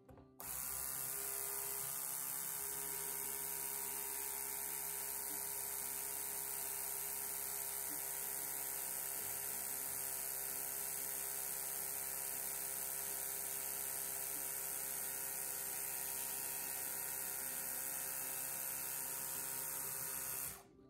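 Beaulieu 4008 ZM4 Super 8 camera's motor and film transport running steadily, a hissing whirr with a steady whine. It switches on suddenly about half a second in and stops suddenly just before the end.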